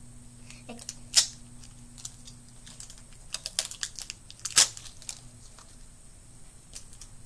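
Small plastic clicks and crinkles of a Minnie Mouse surprise egg being twisted and pried open by hand, with two sharper clicks, about a second in and about halfway, and a run of light ticks between them.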